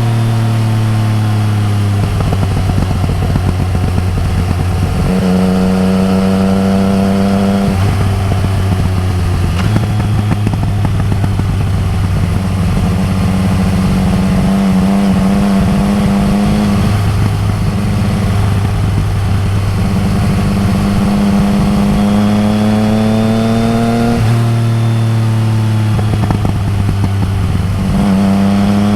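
Yamaha MT-09 Tracer's inline-three engine running through an Akrapovic exhaust under way, its pitch rising with the throttle and dropping back several times as the rider shifts and eases off, with wind rush over the top.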